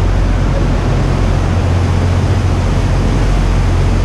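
A boat's engine running at a steady low hum under a steady rushing noise of wind and water.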